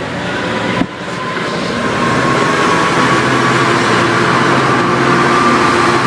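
An Amtrak train's diesel locomotive running at the platform, with a steady engine tone and a held whine above it. The sound grows louder over the first couple of seconds, then stays level.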